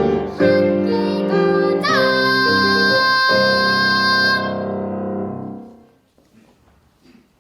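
A child singing a children's song over instrumental accompaniment, ending with a final note held for a couple of seconds; the music then fades out about six seconds in, leaving only faint room sounds.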